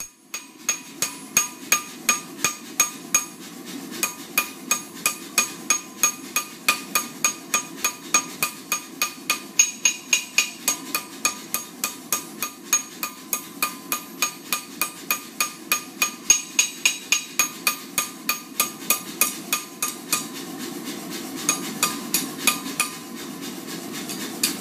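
Blacksmith's hand hammer striking hot steel stock on an anvil: a steady run of ringing blows, about three a second, over a steady low rush. The blows thin out near the end.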